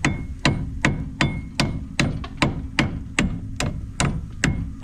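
Hammer striking metal in a steady rhythm, about a dozen blows at roughly two and a half a second, some with a short metallic ring.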